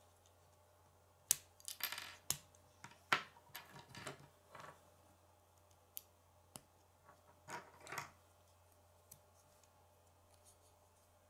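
K'nex plastic rods and connectors clicking and rattling as they are pressed and snapped together by hand: irregular clusters of sharp clicks with short pauses between.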